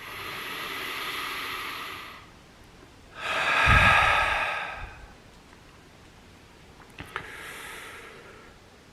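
A man taking slow, deep centering breaths: a long breath in through the nose, a louder open-mouthed breath out about three seconds in that puffs low on the microphone, then a fainter breath in near the end.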